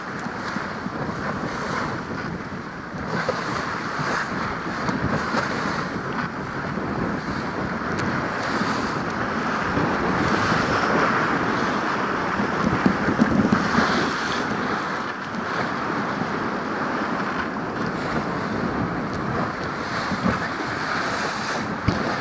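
Water rushing and splashing along the hull of a jangada sailboat running fast through choppy sea, mixed with wind buffeting the microphone. The rushing noise is steady, swelling a little now and then.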